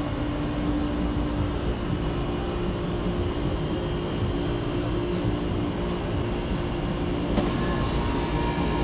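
Outdoor air-conditioner condensing units running: a steady hum of compressor and condenser fan. A sharp click about seven seconds in, after which a higher steady tone joins the hum.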